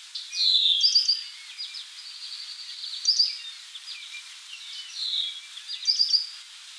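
Songbirds calling outdoors: a dry, rapid trill a couple of seconds in, typical of a worm-eating warbler's song, among repeated downward-slurred whistles and sharp doubled high notes.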